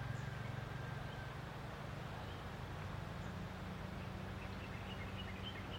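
A steady low hum, with a few faint bird chirps in the last couple of seconds.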